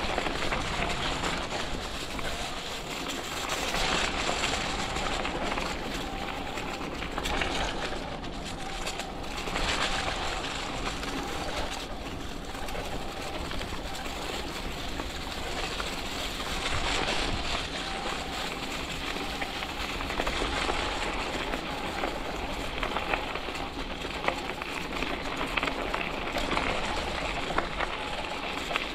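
Electric bike with a 750-watt conversion kit riding along a trail: steady rolling tyre noise and wind on the microphone, with a faint steady motor whine.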